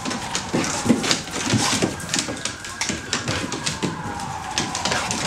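Two dogs play-fighting on a wooden deck: claws and paws scrabbling and knocking on the boards in quick, irregular clicks, with short low scuffling noises between them.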